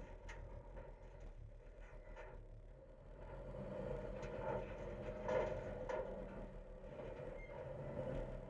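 Front-loader garbage truck running with a steady engine hum that grows louder about three seconds in. Scattered rattles and crackles come from the packed recyclables in the hopper.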